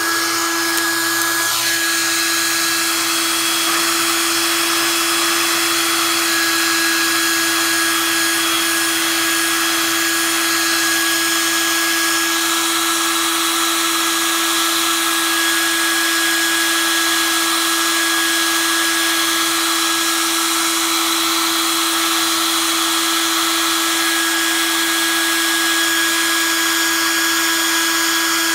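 Mallory Master Travel compact hair dryer running steadily, a level motor whine over the rush of blown air.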